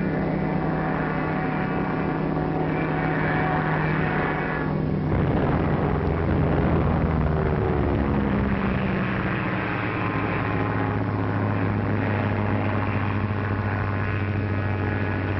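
Propeller aircraft engines droning steadily, the pitch shifting about five seconds in and settling to a lower drone.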